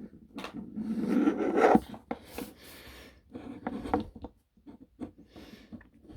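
Hard plastic toy parts rubbing, scraping and clicking as accessories are pulled off and pushed onto 5 mm pegs on a Transformers action figure.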